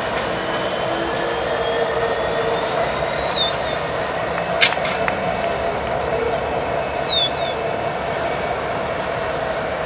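Two CN diesel-electric locomotives running light, passing: a steady engine drone with rolling wheel and rail noise and a faint high whine. A sharp click about halfway through.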